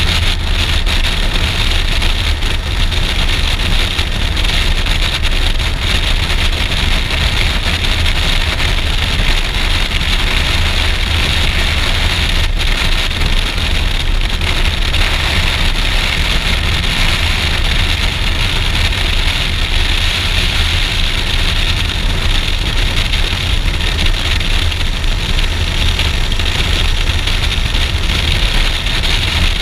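Suzuki V-Strom DL650XT's V-twin engine running at a steady cruise, mixed with wind rushing over the microphone. The sound is steady, with a heavy low rumble.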